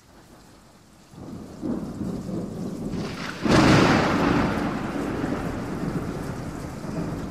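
Thunder-and-rain sound effects played over loudspeakers as the projection show's soundtrack opens. A faint rain-like hiss builds about a second in, then a loud thunderclap comes about three and a half seconds in and rolls away slowly under steady rain noise.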